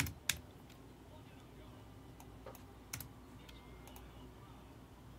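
A few separate keystrokes on a computer keyboard: two quick clicks at the start, then two more about two and a half and three seconds in, over a faint steady electrical hum.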